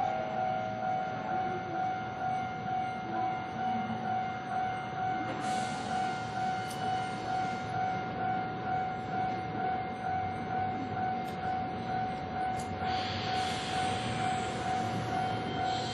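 Japanese railway level crossing warning alarm ringing its steady repeating 'kan-kan' tone, about one and a half strokes a second. A rush of running noise swells briefly about five seconds in and again from about thirteen seconds in.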